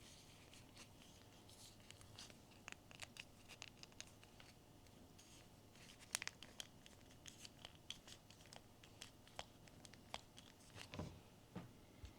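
Quiet, close handling of blind-box packaging: scattered small clicks, taps and light tearing and crinkling, with a sharper click about halfway through and a soft thump near the end.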